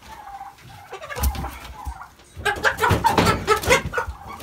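Cobb 500 broiler chickens clucking and squawking while a bird is caught in a cage, with low handling thumps. The calls get louder and denser about halfway through.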